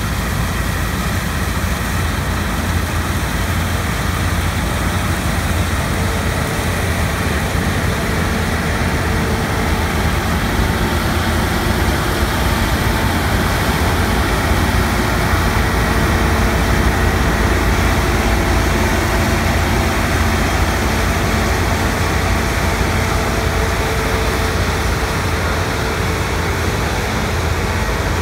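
Heavy diesel harvest machinery running steadily under load: a continuous low engine drone with a few faint steady whining tones, growing slightly louder around the middle.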